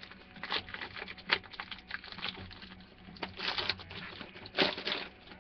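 A box of 2012 Black football cards being opened and handled: scattered clicks and taps with rustling of cardboard and wrapper, two louder rustles in the second half.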